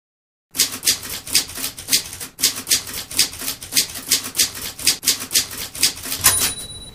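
Typewriter keystrokes clacking in a quick, even run of about five strokes a second, ending with a short high ring.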